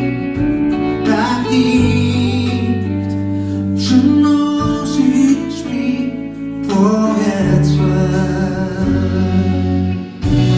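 Live band playing a slow song, with guitar and a voice singing over it.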